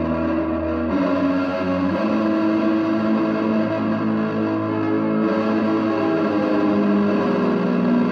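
Electric guitar played through a chain of effects pedals, making an ambient soundscape of sustained, layered droning tones. The held notes shift to new pitches about one and two seconds in, then hang as a steady wash.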